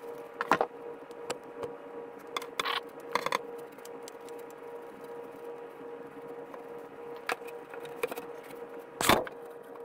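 Handling noise of thin twine being wound tightly around a bamboo gig handle: scattered light rustles and clicks, the loudest about nine seconds in. A steady hum runs underneath.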